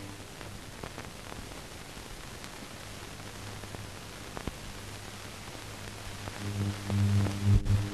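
Blank soundtrack of silent newsreel film: a steady hiss with scattered clicks and crackles. About six seconds in, a low electrical hum with overtones comes in and becomes the loudest sound.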